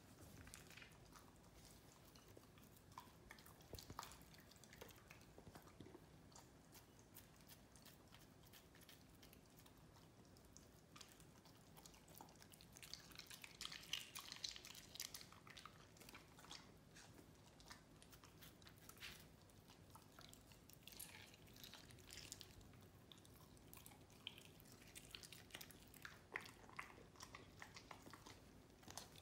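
Welsh corgi eating chunks of raw tuna: faint, soft wet chewing and lip-smacking clicks, scattered and irregular, with a denser bout of chewing about 13 to 15 seconds in. Near the end it licks and noses the feeding mat.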